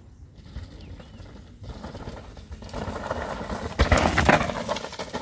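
Mountain bike tyres rolling and skidding over loose dirt and gravel as a rider comes down the trail and passes close by. The sound builds over a couple of seconds, is loudest about four seconds in, then falls away quickly.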